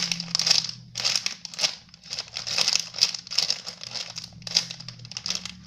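Repeated crinkling and rustling as a large peach squishy toy is squeezed and handled, in irregular bursts of a fraction of a second each. A steady low hum runs underneath.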